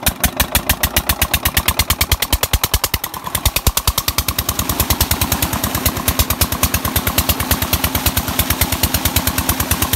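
Diesel tubewell engine running with a rapid, even exhaust beat just after being started, driving the irrigation pump. A faint rush of water gushing from the outlet pipe lies under it, and a steady low hum joins about halfway through.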